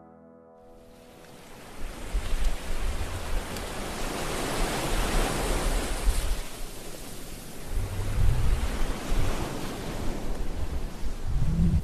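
Ocean surf and wind, an even rushing that fades in about half a second in. Gusts buffet the microphone in low rumbles around eight seconds and again near the end.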